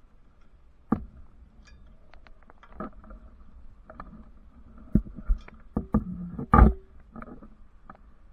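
Climbing hardware knocking and clinking against a steel radio tower: scattered sharp knocks, one about a second in and a quick cluster from about five to seven seconds in. The loudest comes a little past six and a half seconds in, with a short ring.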